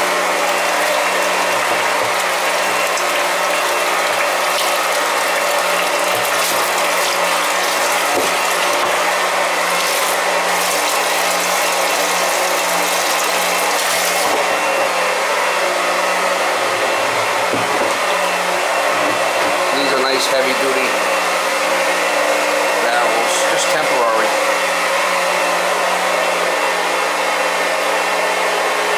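Small electric self-priming transfer pump running with a steady hum, pumping heating oil out of an old oil tank through a hose into barrels.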